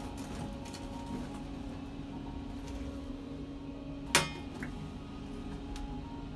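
Shop ambience with a steady low hum and faint handling ticks. About four seconds in comes one sharp ringing clink as packaged items are handled on metal display peg hooks.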